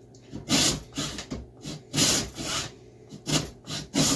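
Hacksaw with a bimetal blade cutting a wedge kerf into the top of a wooden axe handle: slow back-and-forth strokes, about six in all, each a short scratchy burst of teeth biting the wood.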